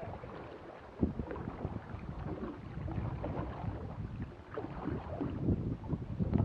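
Wind buffeting the microphone on a fishing kayak, with irregular knocks, the first sharp one about a second in.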